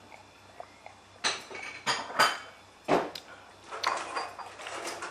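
A person breathing out hard through the mouth in several short gusts from chilli heat. About three seconds in there is a single knock, as a drinking glass is set down on a table.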